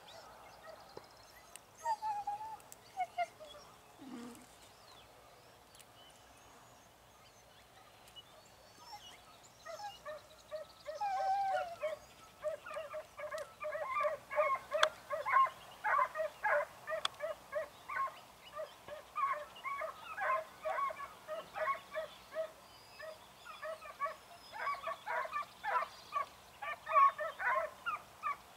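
A pack of fox hounds giving tongue as they run a trail: a few scattered cries at first, then from about ten seconds in a steady run of rapid, repeated baying yelps, several a second.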